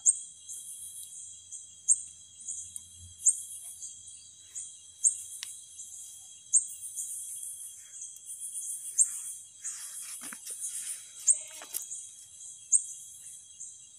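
Night insects calling: a steady high-pitched cricket trill under a sharp high chirp that repeats about every one and a half seconds. Brief rustling and scraping comes around ten to twelve seconds in as a stick probes between the stones of the wall.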